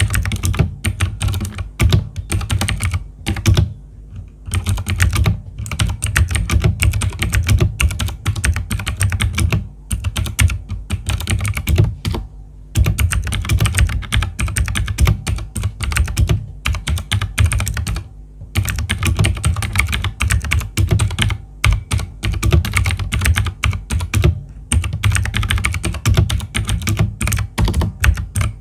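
Typing on a T-Dagger TGK317 mechanical keyboard with Outemu blue switches: a fast, dense run of clicky keystrokes, broken by a few short pauses.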